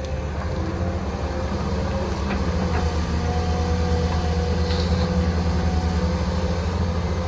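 Hydraulic excavator's diesel engine running steadily under load, with a thin steady whine above the engine drone and a brief hiss nearly five seconds in.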